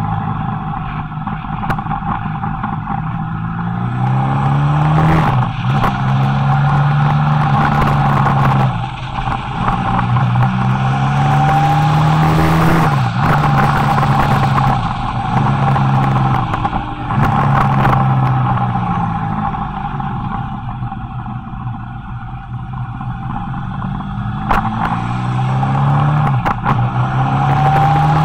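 Motorcycle engine under way on a winding downhill road. Its pitch climbs and then drops sharply several times as the rider works the throttle and gears, over wind rush and a steady whine.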